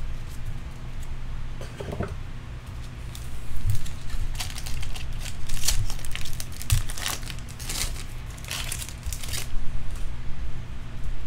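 Foil wrapper of a Bowman baseball card pack being torn open by hand, crinkling in a run of sharp, crackly rustles from about four seconds in.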